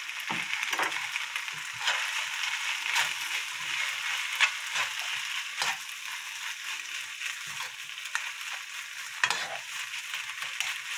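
Kimchi fried rice with diced ham sizzling in a hot frying pan while a plastic spatula stirs and turns it. Steady hiss with irregular scrapes and knocks of the spatula against the pan.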